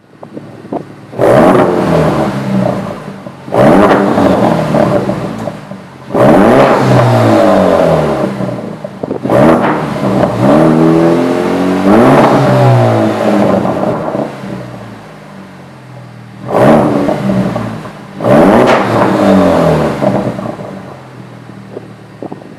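Turbocharged 2.3-litre four-cylinder of a 2015+ Ford Mustang EcoBoost, run through a race catback exhaust with a single mid-pipe muffler and straight 3-inch pipes out the back. The parked car's engine is free-revved about seven times, each blip rising sharply and falling back toward idle.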